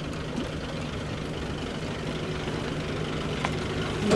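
A vehicle engine running steadily, with an even low hum. There is a short click about three and a half seconds in and a brief knock near the end.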